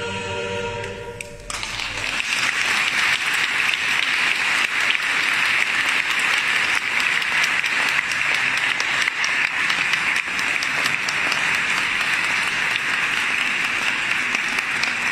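A choir holds its final chord, which stops about a second and a half in, and the audience breaks into steady applause.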